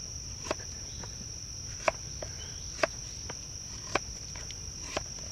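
Knife shearing shavings off the end of a hardwood oak stick pressed against a stump's edge: a short sharp crack with each downward stroke, about five strokes roughly a second apart. Under the strokes, a steady high insect trill.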